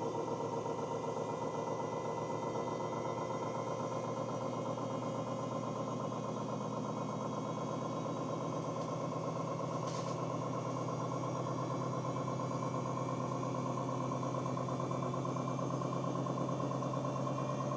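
Washing machine on its spin cycle: a steady, even motor hum with a fast vibrating pulse from the spinning drum.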